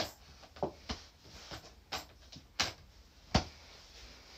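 Handling noise of objects being moved around: about six short knocks and clicks at irregular intervals, the sharpest about three and a half seconds in.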